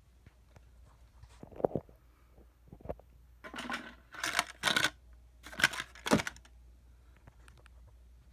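Things on a cluttered shelf being handled and moved by hand: a few knocks, then several short bursts of rustling and clatter in the middle, with hum and room tone between.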